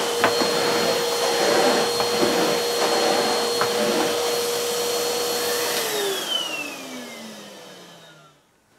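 Numatic Henry Xtra bagged canister vacuum cleaner running with a steady motor whine as its standard floor nozzle is pushed over carpet. About six seconds in it is switched off, and the motor winds down in a falling whine that fades out over about three seconds.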